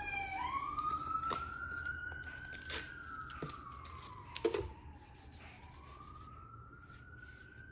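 Faint emergency vehicle siren wailing, its pitch slowly rising and falling twice as it fades, with a few light clicks and taps.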